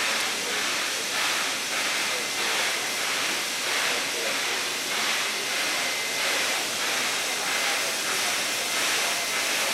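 Steam locomotive 3642, a NSW C36 class 4-6-0, working slowly: a steady hiss of steam with soft exhaust chuffs about twice a second. A faint, steady high tone joins a few seconds in.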